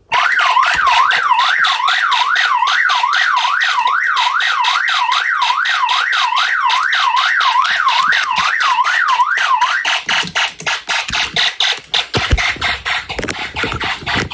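Electronic alarm sounding from a homemade Snap Circuits fire alarm system, switched on suddenly: a warbling siren tone swooping up and down a little over twice a second over a fast pulsing buzz. The warble cuts out about ten seconds in, and the pulsing carries on less evenly.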